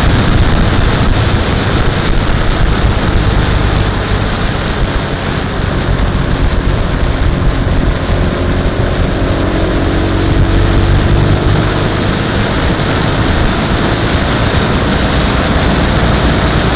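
Motorcycle riding at speed on a wet road: steady wind rush over the microphone with the engine running underneath, its note rising slightly about halfway through.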